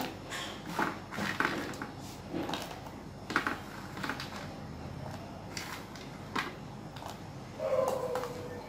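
Metal spoon stirring milk in a steel pot, clinking and scraping against the sides in scattered light clicks, with cashews being dropped in. A short steady hum near the end.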